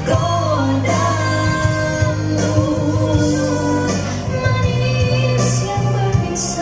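A live band's sound check: a singer over instrumental accompaniment with a steady bass line and occasional cymbal strokes.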